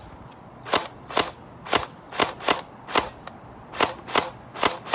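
Airsoft gun firing single shots, about ten sharp cracks in quick, uneven succession.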